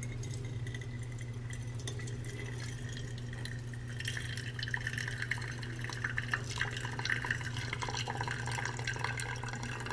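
Brewed coffee trickling and dripping from a metal mesh pour-over cone into a glass carafe, with the dripping getting busier about four seconds in. A steady low hum runs underneath.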